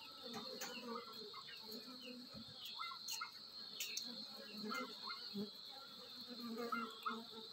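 Honeybees buzzing as they fly in and out of the hive entrance, over a steady high insect trill with scattered bird chirps behind.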